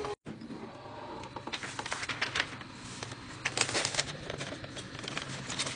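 Paper crinkling and rustling in three short spells over a steady low hum: the transfer sheet being handled on a freshly pressed cotton bag.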